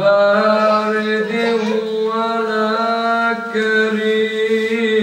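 A young man's voice chanting Quran recitation in Arabic, drawing out one long melodic phrase without a break, its pitch stepping and wavering slowly between notes.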